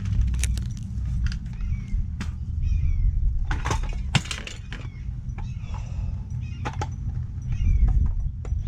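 Scooter parts being handled during a teardown: a run of sharp clicks, knocks and clatters of plastic and metal parts, the loudest a few seconds in, over a steady low rumble. Short high chirping calls sound now and then.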